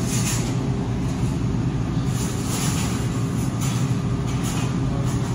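Steady low machinery hum, like cafeteria refrigeration or ventilation running, with a few brief soft rustling noises over it.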